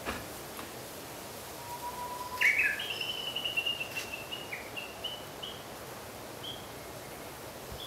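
A small songbird singing over a steady outdoor hiss: a short, low whistled note about two seconds in, then a run of high, clear notes that trails off after a few seconds. The singer is not the wood pigeon, whose call is a low coo.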